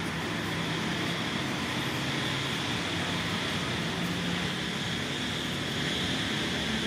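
Steady background rumble and hiss, like distant traffic, with no distinct yelps or barks standing out.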